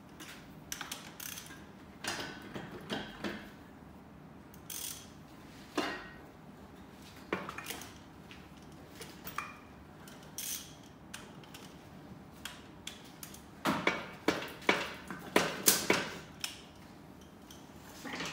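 Ratchet wrench clicking and metal tools clinking as bolts are undone on a BMW 2.0-litre diesel engine on an engine stand, with a run of louder metallic clanks near the end.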